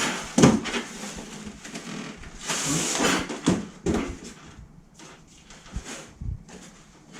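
A cardboard box being flipped over and its packed parts handled: irregular rustling and scraping with knocks, the loudest about half a second in, growing quieter toward the end.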